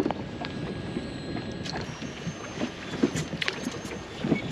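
Water and wind hiss around an inflatable boat on open sea, with scattered short clicks and knocks at uneven spacing.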